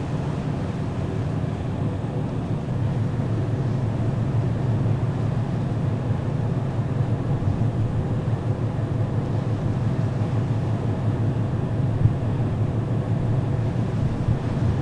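Steady low drone of the ferry Aogashima-maru's engines under way, with an even hiss of wind and sea over it.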